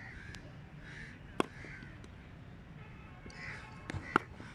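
Two sharp cracks of a cricket bat striking the ball during net practice, about three seconds apart, the second with a softer knock just before it. Crows caw repeatedly in the background.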